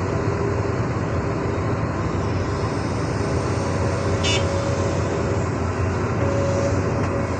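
Diesel engines of an excavator and dump truck running steadily under load. A short, sharp clink sounds about four seconds in.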